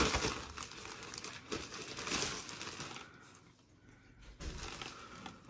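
Packaging crinkling and rustling as a helmet is pulled out of its box. It goes quiet for about a second after three seconds, then rustles a little again near the end.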